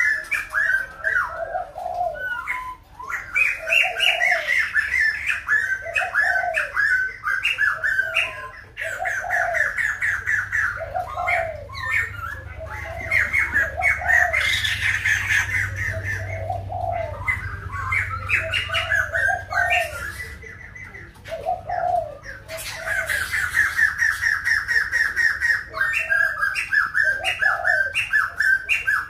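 White-crested laughingthrush singing: long runs of rapid chattering, cackling notes mixed with short whistles, breaking off and starting again several times. A low hooting note repeats about once a second underneath.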